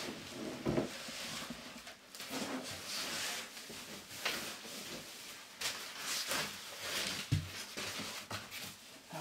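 Packing foam being cut and pulled out of a shipping box: irregular scraping and rustling with a few dull knocks.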